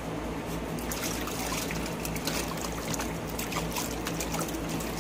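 Dog splashing and pawing at the water in a shallow plastic kiddie pool: a rapid, irregular run of small splashes and sloshes, over a steady low hum.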